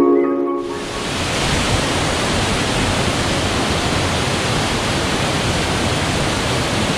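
Waterfall's steady, even rush of falling water, coming in about half a second in as a few music notes stop.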